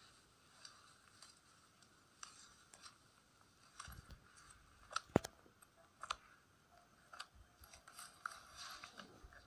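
Faint crunching and rustling of grass and soil as a wooden stake is twisted and pushed into the ground by hand. Scattered small clicks and a few dull knocks come through, the sharpest click about five seconds in.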